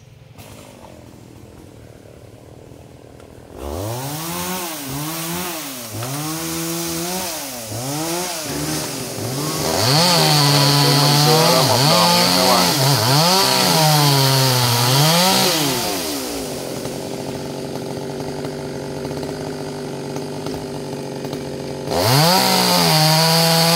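Two-stroke chainsaw starting about three and a half seconds in, then revved up and down over and over. It is held at high speed for several seconds, drops back to a lower idle, and is revved again near the end.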